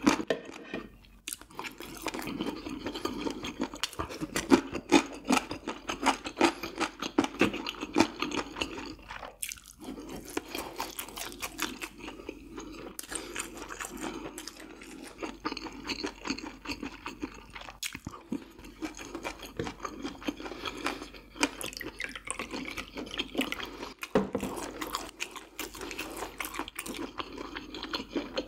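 Close-miked chewing of food, a dense run of small wet mouth clicks and bites, with a few brief pauses.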